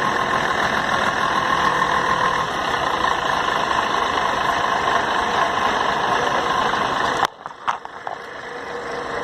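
Scania K113 CL coach diesel engine running steadily. About seven seconds in, the sound drops away sharply and a couple of clicks are heard, then the engine sound builds back up.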